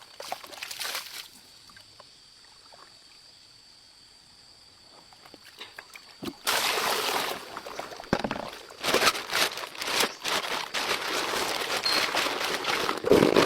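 Water splashing and sloshing in a stream in loud, irregular bursts, starting about six seconds in after a quiet stretch with a faint steady high tone.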